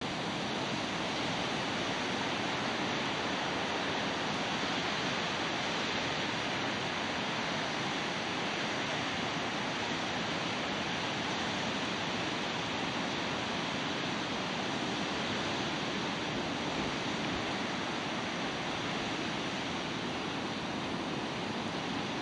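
Steady rush of ocean surf, an even unbroken wash of sound.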